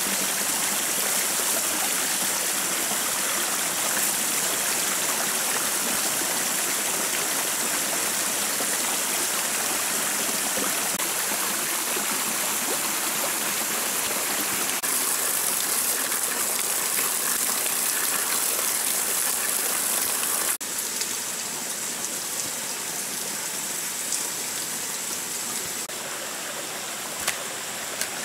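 A small rocky forest stream running, a steady rush of water. It drops a little in level about two-thirds of the way through, and a couple of faint clicks come near the end.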